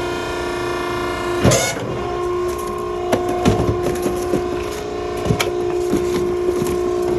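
Maren baler's machinery humming with a steady whine. About a second and a half in there is a loud clatter and the pitch of the hum shifts, followed by scattered knocks and clicks.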